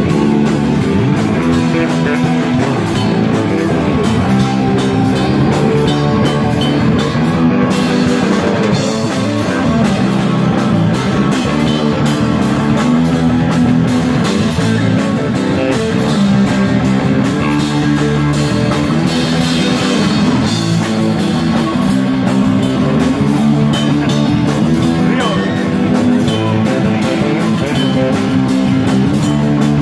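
Live rock band playing an instrumental passage, with guitar and drum kit.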